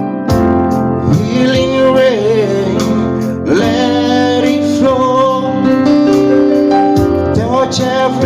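Music: a gospel worship song, a voice singing over keyboard accompaniment.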